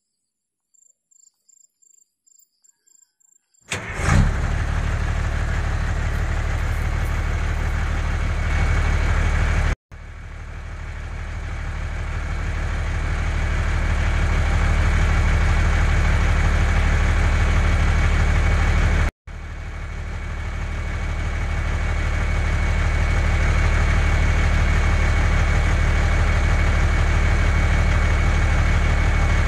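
After a near-silent start, a vehicle engine comes in suddenly about four seconds in and runs steadily with a deep rumble and a constant high tone. It drops out briefly twice and swells back up after each break.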